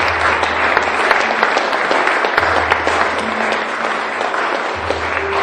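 Audience clapping steadily after a spoken reading, with music starting to come in under the applause near the end.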